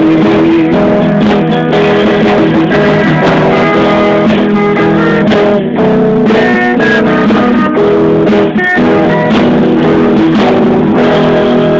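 Live band music led by guitars, strummed and picked chords in an instrumental passage without singing.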